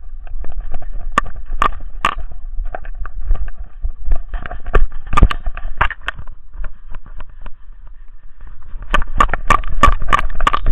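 Handling noise from a camera strapped to a dog as it runs and rolls in snow: knocks, clicks and rubbing over a low rumble, with a quick run of sharp clicks near the end.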